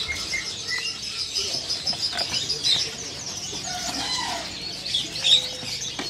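Many caged songbirds chirping and calling over one another, with a fast run of repeated high notes in the first half and a louder call about five seconds in.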